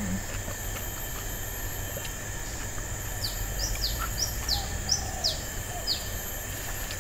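A small bird calling: a quick run of about eight short, high chirps, each sweeping downward, starting about three seconds in and lasting about three seconds, over steady faint outdoor background noise.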